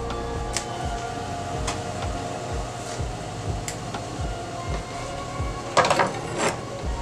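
Light knocks and handling noises of hands working garlic cloves and chopped herbs on a wooden cutting board, with a louder clatter about six seconds in.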